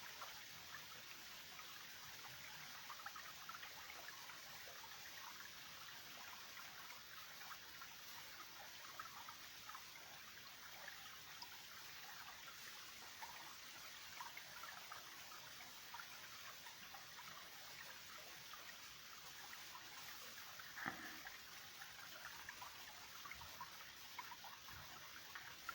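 Small forest creek trickling and running over stones, a steady faint rush of water. One brief louder knock about twenty seconds in.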